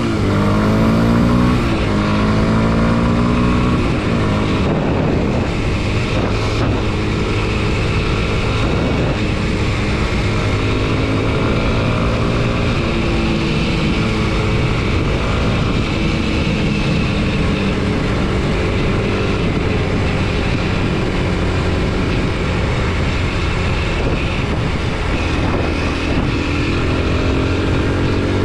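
Kawasaki KLX 230 SM's air-cooled single-cylinder four-stroke engine pulling the bike along, its revs climbing sharply at the start, rising and falling with throttle and gear changes, then steadier, and climbing again near the end.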